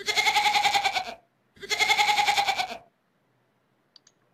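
Goat bleating: two long, quavering calls of about a second each, a short pause between them.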